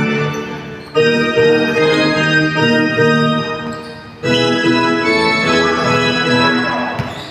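Organ music playing held chords, with new chords struck about a second in and again about four seconds in, each fading away before the next, and dying out near the end.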